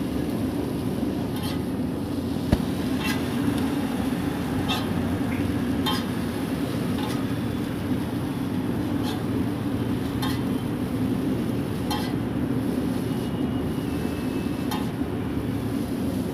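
Metal utensils clicking and scraping on a large flat iron griddle, about once a second, as boiled noodles are tossed and spread for chow mein. Under it runs a steady low rumble.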